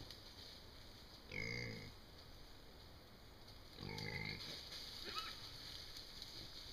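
Feral hogs calling: two drawn-out grunting calls, one about a second in and one about four seconds in, then a short, higher-pitched call just after the second.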